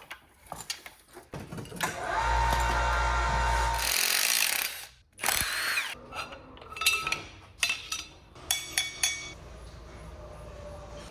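A power tool runs steadily for about two seconds, followed by a short burst of noise. Then come scattered metal clicks and a quick run of ratchet clicks as fasteners are worked on an engine.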